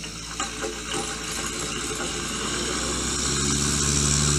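Piston engines of small propeller aircraft running. About three seconds in, one engine comes through much louder as a steady hum and stays there.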